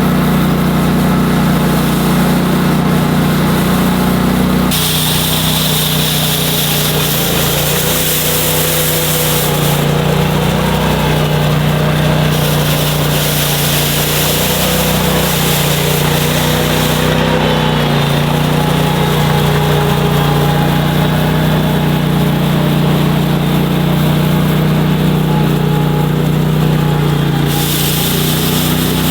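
Boss SR Mag's engine running steadily while its rotary broom attachment sweeps snow. A hiss over the engine's constant note changes in brightness a few times.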